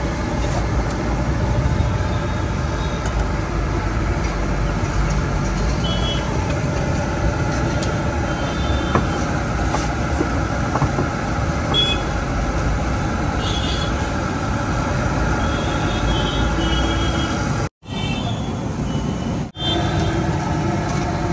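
Spinach fritters (palak bhajiya) deep-frying in a large iron kadai of hot oil, a steady sizzle, mixed with street traffic noise and a few short high beeps. The sound cuts out briefly twice near the end.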